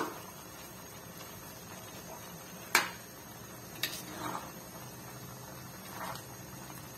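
Metal spatula stirring noodles in a steel wok, knocking sharply against the pan at the start, loudest about three seconds in, and again a second later, with softer scrapes after, over a faint steady background noise.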